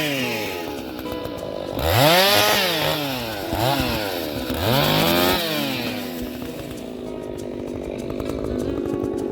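Small engine revving up and falling back three times in quick succession, then settling to a steadier lower running note.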